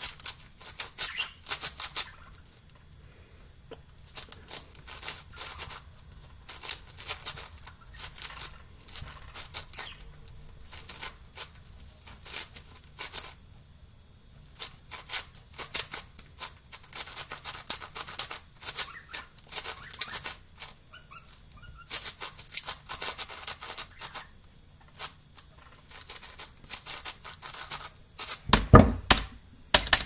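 Plastic 7x7 speed cube being turned fast by hand: quick runs of clicking, clacking layer turns with short pauses between them. Near the end there are heavier knocks as the cube meets the wooden table.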